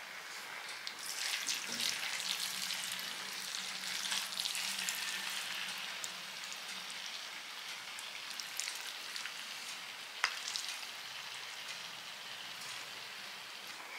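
Wooden spoons scooping and stirring sauce-coated spaghetti, a steady wet crackling hiss, louder for the first several seconds, with an occasional click of spoon on dish.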